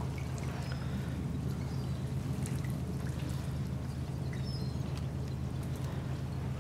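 Sea water dripping and trickling around a creel of crabs as it is lowered on a rope into the sea, with scattered small drips and splashes over a steady low hum.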